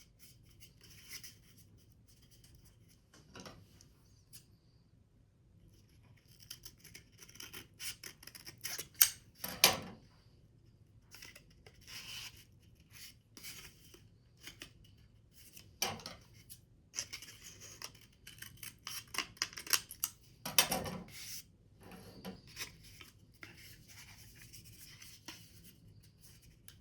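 Scissors snipping paper, with paper being handled and rustled between cuts in irregular bursts of crisp clicks and scrapes.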